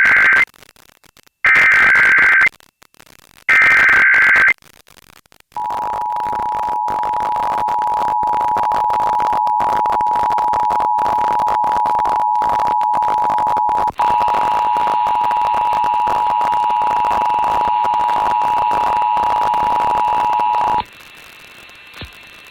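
Emergency Alert System test tones broadcast over the air. Three short bursts of the SAME digital header's shrill two-pitch data warble come about a second apart. Then the steady two-tone EAS attention signal (853 and 960 Hz) sounds for about fifteen seconds, with a fainter higher tone joining partway through, and cuts off suddenly.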